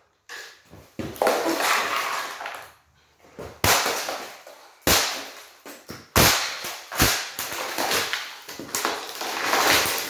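Onix plastic box fan being smashed with a golf club on a concrete floor: about half a dozen hard hits at irregular spacing, each with plastic cracking and broken pieces clattering.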